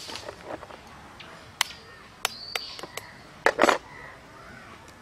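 Eggs being tapped and cracked against the rim of a stainless steel bowl: a few sharp clinks, then a louder quick double knock about three and a half seconds in.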